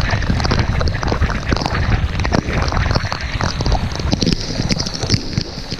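Wind buffeting the microphone of a camera on a mountain bike ridden fast along a wet road in rain, over the hiss of tyres and spray. Through it runs a fast, irregular clatter of taps and knocks.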